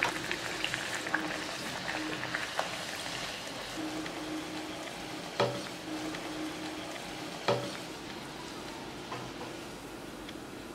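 Wheat-flour puri deep-frying in hot oil in a kadhai: a steady sizzle, with two sharp clicks about five and a half and seven and a half seconds in.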